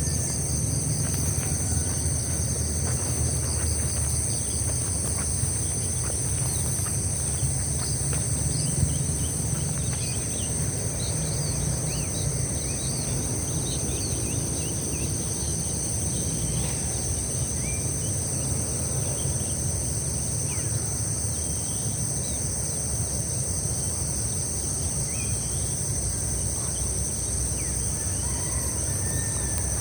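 Steady high-pitched drone of an insect chorus, with scattered short bird chirps over a low, steady rumble.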